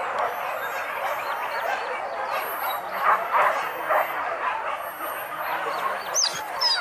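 A pack of boar-hunting dogs barking and yelping over one another, with a few high yelps near the end.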